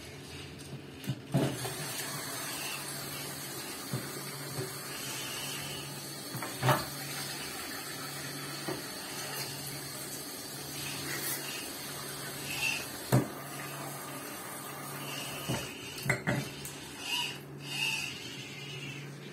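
Dishes clinking now and then as they are handled and washed at a kitchen sink by a small robotic arm, over a low hum that pulses on and off about once a second.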